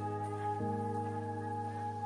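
Background music: sustained, steady chords, with a change of chord about half a second in.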